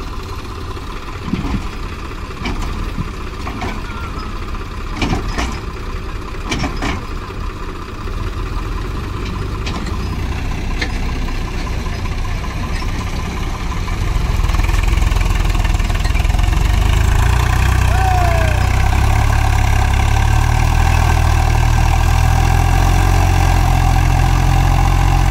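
Tractor diesel engine running, with a few sharp knocks about five to seven seconds in. About fourteen seconds in the engine grows louder and then runs steadily.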